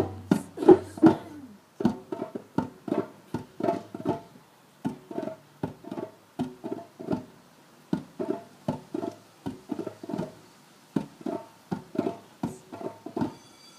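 Djembe hand drums played in a steady, repeating rhythm: a run of separate short hand strokes, several a second, each with a brief ringing tone.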